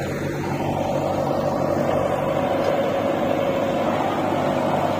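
JCB 3DX backhoe loader's diesel engine running steadily at an even speed, with no revving.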